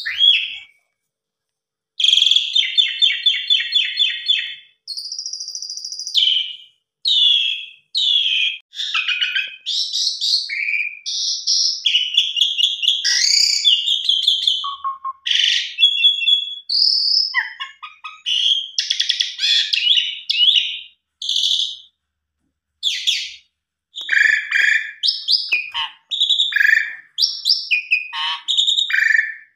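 Asian pied starling (jalak suren) singing a long, varied song of clear whistles, chatter and rapid repeated trilled notes, rich in borrowed phrases, with brief pauses between bursts.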